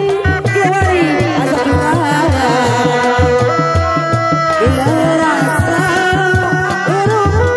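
Sundanese reak ensemble playing: dog-dog frame drums keep a steady beat of about four strokes a second under a high, held melody that bends and ornaments its notes.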